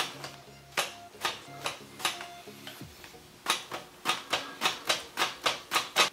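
Zucchini pushed back and forth over a stainless-steel mandoline slicer, each pass a sharp scraping stroke as the blade cuts a round slice. The strokes are slower with a short pause near the middle, then come in a quicker run of about three a second. Background music plays underneath.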